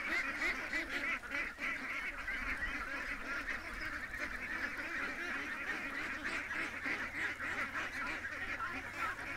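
A flock of domestic ducks and geese calling: many birds at once, their calls overlapping in a continuous chatter.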